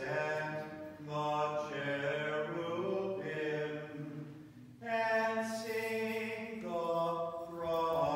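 Unaccompanied Byzantine liturgical chant: voices singing slow phrases of long-held notes, with brief pauses between the phrases.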